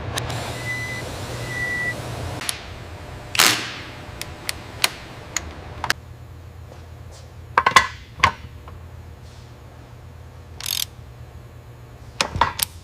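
Scattered clicks and knocks of hand tools and parts being fitted during engine-bay reassembly, over a low steady hum, with one louder sharp knock about three and a half seconds in. Two short high beeps sound near the start.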